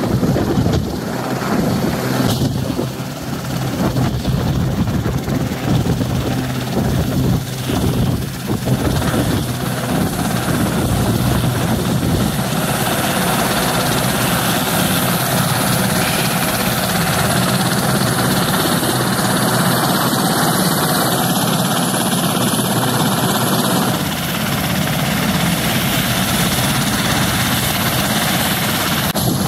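Westland Sea King helicopter hovering low and setting down, its main rotor beating over the running twin turboshaft engines. Once it is on the ground, about halfway through, the sound settles into a steady rotor and turbine noise as the blades keep turning.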